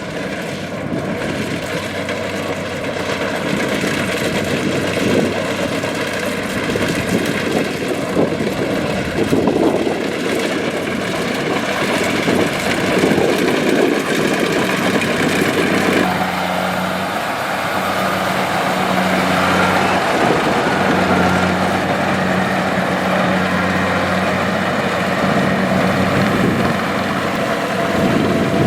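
Kubota DC-70 combine harvester's diesel engine and threshing machinery running steadily under load. About halfway through, a steady low engine hum becomes clearer.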